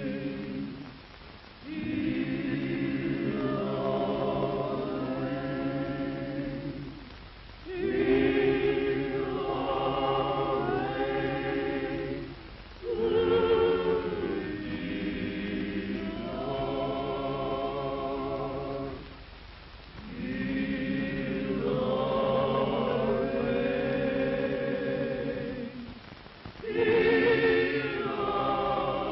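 A choir of several voices singing a slow spiritual in harmony, in long held phrases broken by short pauses every five to seven seconds. The old film soundtrack is thin, with no high treble.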